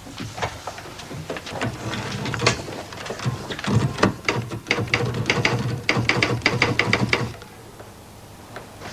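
Manual typewriter being typed on: quick runs of key strikes clacking, which stop about seven seconds in.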